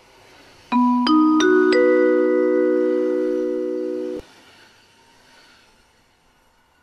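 Railway station announcement chime: four bell-like notes struck one after another, each higher than the last, ringing on together and then cutting off abruptly after about three seconds.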